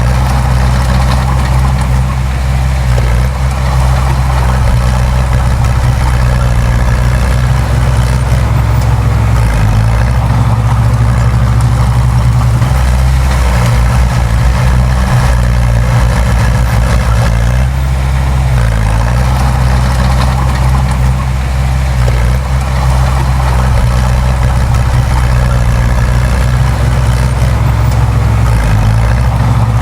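Diesel engine of heavy earthmoving machinery running steadily with a deep, even drone.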